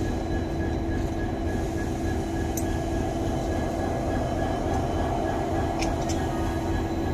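WDP4D diesel-electric locomotive idling close by: a steady low engine rumble with a constant hum over it, and a few faint clicks.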